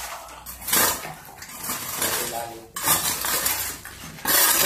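A metal hand tool striking and chipping broken concrete rubble, three sharp clinking blows about one and a half to two seconds apart.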